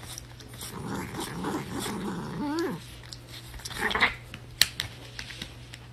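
A pet growling low and continuously, the growl ending in a short rising-and-falling whine about two and a half seconds in, then quieter with a few sharp clicks.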